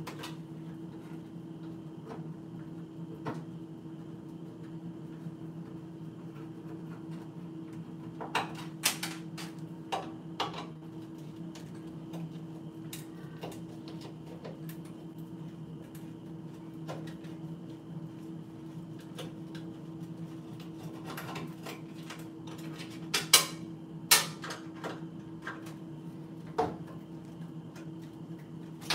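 Sharp metal clinks and knocks from a hand screwdriver and loose parts against a partly dismantled microwave oven's sheet-metal casing, a few scattered strikes with a cluster about a third of the way in and the loudest pair about three quarters of the way through. A steady low hum runs underneath.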